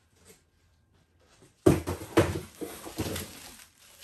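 Cardboard mystery box being opened and its packed contents pulled out: a quick run of knocks and rustles of cardboard and plastic wrapping, starting about halfway through after a near-silent opening.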